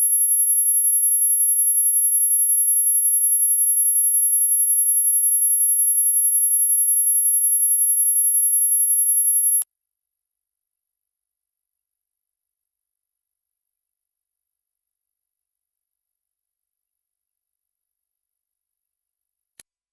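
Dog-whistle sound made as an electronic tone: a single very high-pitched steady tone that jumps to a slightly higher steady tone about halfway through, then stops abruptly just before the end.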